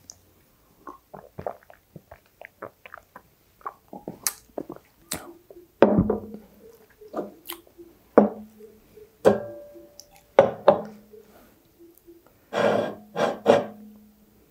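A few soft sips and swallows, then a run of sharp knocks about a second apart, each followed by a short ringing tone.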